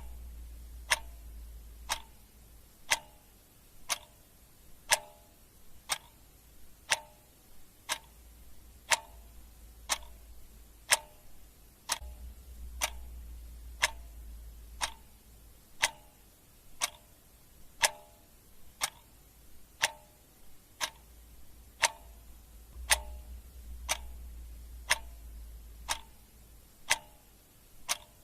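Clock ticking steadily at one tick per second, alternating tick and tock, over a faint low hum.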